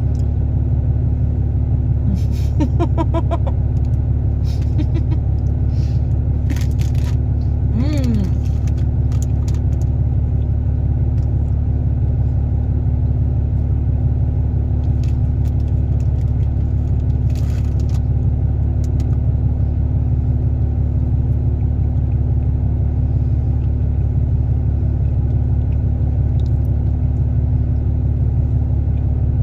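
A steady low rumble runs throughout, with a few short crunchy clicks and a brief murmur in the first ten seconds as a cookie is bitten and chewed.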